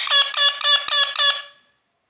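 Parrot imitating a ringing bell: a rapid series of repeated ringing notes, about six a second, that stops about a second and a half in.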